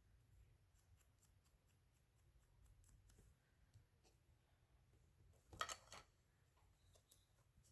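Faint, scattered snips and rustles of paper being cut with small scissors and handled, with one brief, louder paper rustle about five and a half seconds in.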